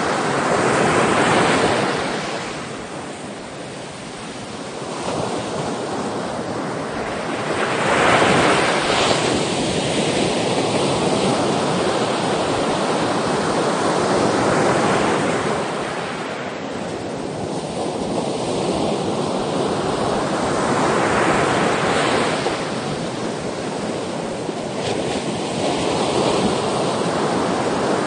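Sea waves breaking and washing ashore, a continuous rush of surf that swells into a louder surge about every six to seven seconds.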